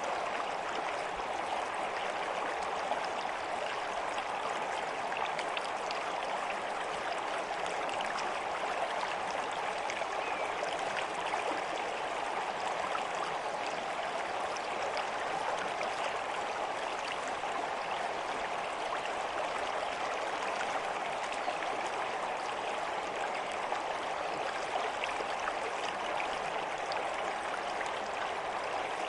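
Water flowing in a stream, a steady babbling with many small irregular splashes and no change in level.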